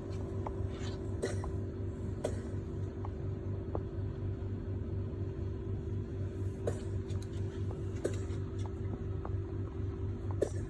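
A steady low machine hum with a pulsing undertone, broken by a few faint brief clicks.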